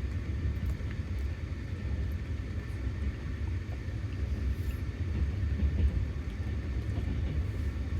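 Steady low rumble of a moving passenger train heard from inside the carriage, with a few light clicks and rattles.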